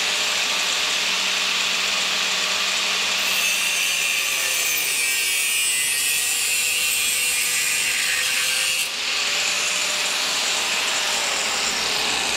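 Angle grinder with a thin cut-off disc cutting through a steel tube: a continuous harsh, high-pitched grinding. The shrillest part of it drops away abruptly about nine seconds in, leaving a steadier, slightly quieter noise.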